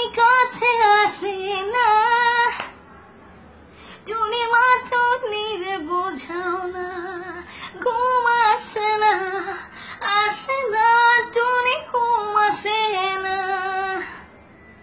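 A young woman singing a Bengali song unaccompanied, in four phrases with short breaks between them.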